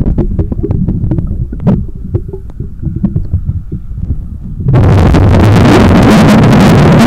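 Underwater sound through a diver's camera: a low rumble with small clicks, then, about two-thirds of the way through, a loud rush of a scuba diver's exhaled bubbles.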